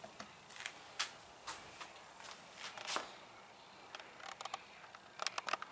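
Faint, scattered light clicks and taps at irregular intervals, with a short cluster of them near the end.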